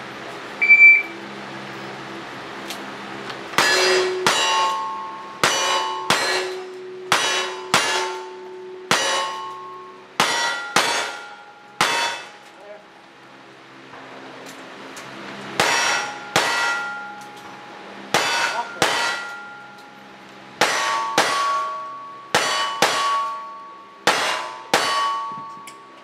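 A short shot-timer beep, then single-action revolvers firing two steady strings of shots at steel targets, each shot followed by the ring of the struck steel plate. There is a pause of a few seconds between the two strings.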